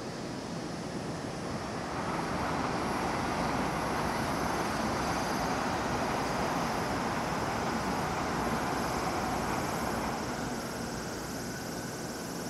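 Electric train running noise, a broad rumble that swells about two seconds in and eases off after about ten seconds.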